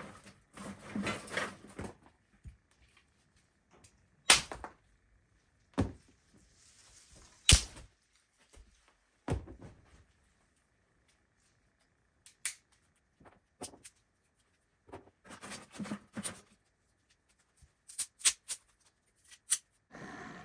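Dry twigs being broken up for stove kindling: a string of sharp snaps spaced a second or more apart, with rustling and clatter as the sticks are handled and dropped on a pile.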